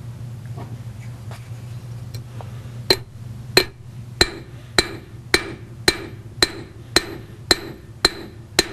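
Cross-peen hammer striking copper wire on an anvil to draw a taper. After about three seconds of only a low steady hum, an even series of ringing blows begins, a little under two a second, about eleven in all.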